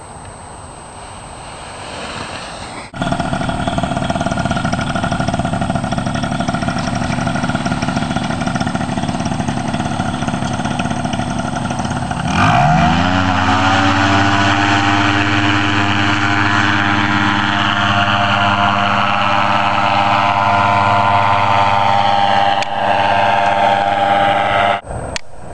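Paramotor engine and propeller running at high throttle for a take-off run, a steady buzzing drone. About twelve seconds in it revs up quickly to a higher, steady full-power pitch.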